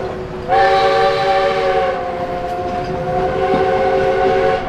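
Steam whistle of narrow-gauge D&RGW 491, a K-37 Mikado, blowing one long blast of several notes at once over train rumble. The blast starts about half a second in and cuts off abruptly at the end.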